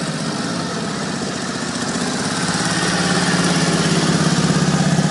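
Vintage Harley-Davidson motorcycle engines running with a steady, rapid beat, growing louder from about two seconds in.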